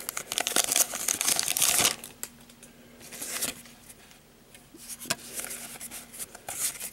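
Foil Pokémon booster pack wrapper crinkling and tearing open for about two seconds, followed by softer rustles as the cards are slid out of it and handled.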